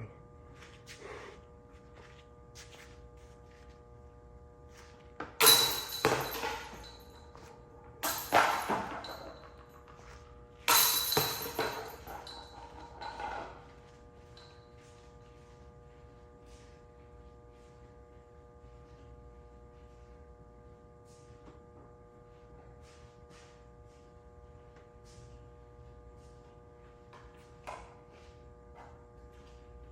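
Three putters hitting the chains of a disc golf basket a few seconds apart, each strike ringing and rattling the chains for a second or two. A steady hum runs underneath.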